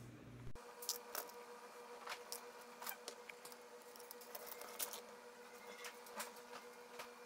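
Faint, irregular small clicks and ticks of hands handling a high-heel shoe and small plastic-and-metal replacement heel tips, test-fitting a tip against the heel.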